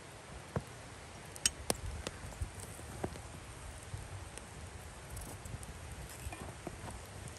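Scattered sharp clicks and light taps, most of them in the first three seconds, from a knife cutting and peeling a potato over a metal plate beside a burning wood fire.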